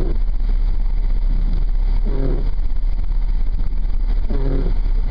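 Steady low engine and road rumble heard inside a moving vehicle's cabin, with a short pitched sound recurring about every two seconds.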